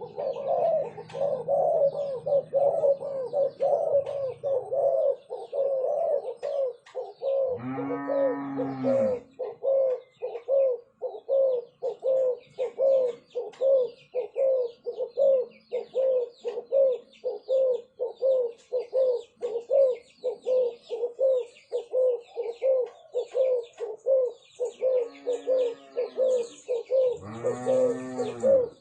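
Spotted doves (turtledoves) cooing: a steady series of short coo notes at about two a second, with deeper, drawn-out bowing coos about eight seconds in and twice near the end. Small birds chirp faintly in the background.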